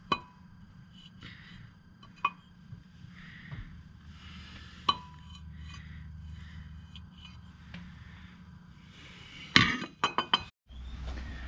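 Sharp metallic clinks with a short ring, a few seconds apart, from a steel motor-mount clamshell knocking against the engine's bolted-on swap mount plate as it is lined up, with a quick cluster of clanks near the end. A low steady hum runs underneath.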